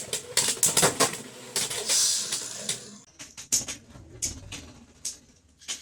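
Beyblade X spinning tops clattering and knocking against each other and the plastic stadium walls. The dense, rapid rattle of clicks lasts about three seconds, then gives way to scattered single knocks that thin out and fade as the battle winds down.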